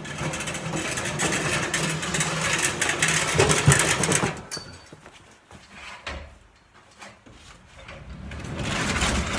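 A snowblower's 10 HP Tecumseh engine running as the machine is walked along. It drops back about halfway through and picks up again near the end.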